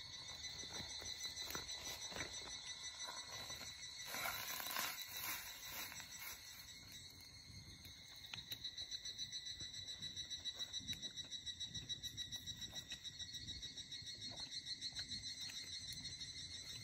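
Insect chorus trilling in a steady high pitch, pulsing at about four beats a second from about halfway through. There are a few soft knocks in the first seconds and a brief louder noise about four seconds in.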